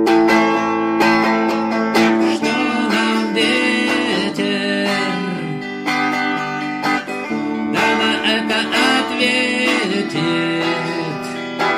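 Music: an instrumental passage led by plucked and strummed guitar.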